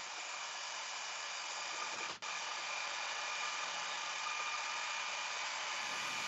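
Karcher Follow Me 1800 PSI electric pressure washer running while its spray and a garden hose pour water into two tall clear columns: a steady rushing hiss of water with a faint steady whine. The sound cuts out for an instant a little over two seconds in.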